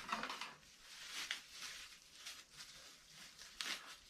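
Faint rustling and crinkling of plastic packaging as heater parts and fittings are handled and unpacked, with a few light clicks.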